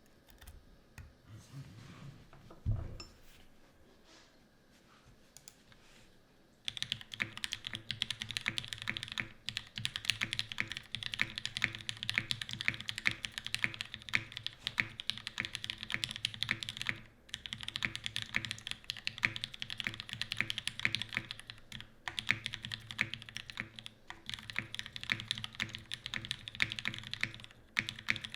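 Typing on a GAF x TGR 910 mechanical keyboard with an aluminum top-mount plate, lubed and filmed Cherry MX Black linear switches and GMK keycaps. A few faint handling sounds and a low thump come first, then fast, continuous typing starts about seven seconds in, with two brief pauses.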